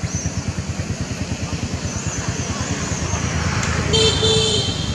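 A steady, fast low throb like a small engine running, with a brief two-part high-pitched tone about four seconds in.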